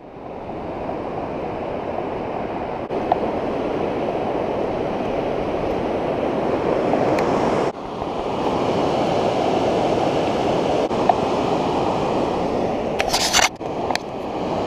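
Steady rush of water: a waterfall pouring over rock, then, after a sudden cut about halfway through, whitewater river rapids. A brief harsh rustle about a second before the end.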